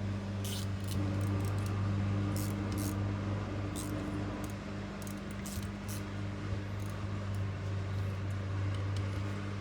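Faint, scattered light clicks of small parts being handled on a transmission valve body, over a steady low hum that runs throughout.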